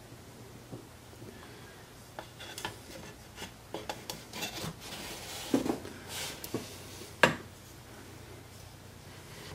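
Handling noises of a Dremel rotary tool and a plywood drill stand being moved and set on a workbench: scattered rubbing and scraping with clicks and knocks, the sharpest about five and a half and seven seconds in. The tool's motor is not running.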